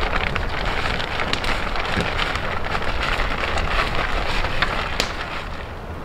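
Wood campfire burning hard, crackling steadily with many small snaps and a sharper pop about five seconds in.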